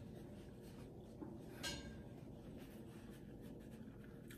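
Quiet room with faint mouth noises and a short mouth click about a second and a half in, then near the end a paper napkin rubbing against the lips.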